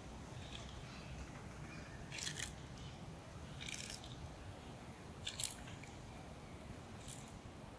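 Giant tortoise biting and crunching leaves from the ground: four crisp crunches about a second and a half apart.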